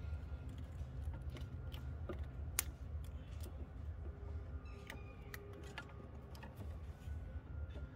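Plastic wiring connectors of an HID headlight ballast being handled and pushed together: scattered small clicks and ticks over a steady low hum.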